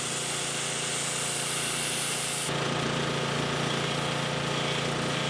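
Wet sandblaster, a 2,500 PSI pressure water blaster with sand fed in from a sand pot, spraying abrasive slurry onto steel: a steady hiss with a steady machine hum underneath. About halfway through the hiss changes tone and gets slightly louder.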